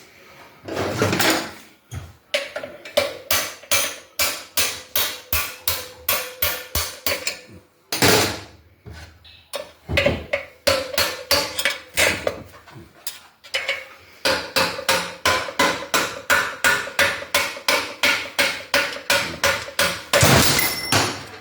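Hammer tapping out a tight front wheel spindle from a motorcycle fork, metal on metal with a slight ring. The blows come in long runs of about three a second, broken by a few heavier single strikes.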